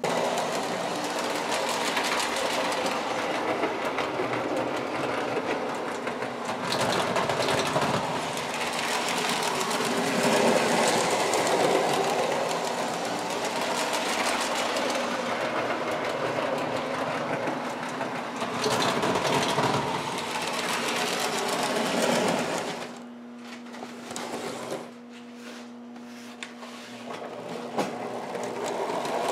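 Lionel O-gauge Alco diesel locomotives running on the layout track: electric motors whirring and wheels clattering over the rail joints. The running stops about 23 seconds in, leaving a steady low hum.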